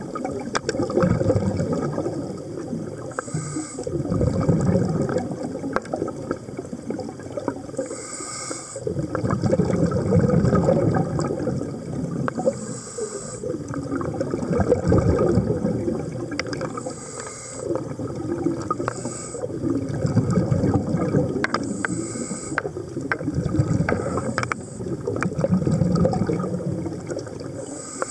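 A scuba diver breathing through a regulator underwater. Low bubbling exhalations swell about every five seconds, short hissing inhalations fall between them, and scattered faint clicks run throughout.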